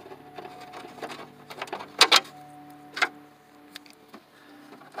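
Sharp metallic clicks and taps of small bolts and the metal license-plate mounting panel being handled by hand: a double click about two seconds in and another about three seconds in, with lighter ticks between, over a faint steady low hum.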